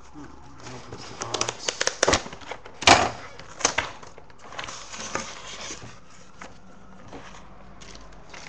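A shipping package being opened and unpacked by hand: irregular clicks and knocks of cardboard and packaging being handled, the loudest about three seconds in, with rustling of packing material in between.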